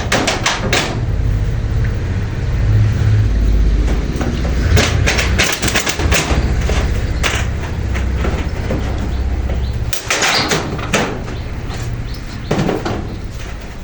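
Wind rumbling on the microphone, with irregular rattles and scrapes from roofing work with corrugated zinc sheets. The wind rumble drops away suddenly about ten seconds in.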